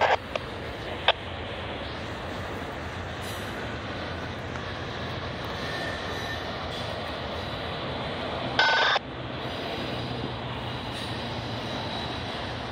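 Double-stack intermodal freight train rolling through the yard, a steady rumble of cars on the rails. There are a few sharp clicks near the start and a brief loud high screech about nine seconds in.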